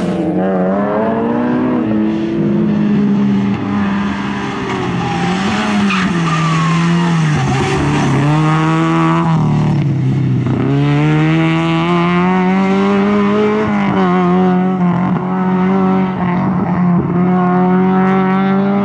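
Opel Astra 2.0's four-cylinder engine driven hard, its revs climbing and falling again and again as the car accelerates, lifts and turns, with tyre squeal as it slides through the turns. Near the end the engine holds high revs as the car pulls away.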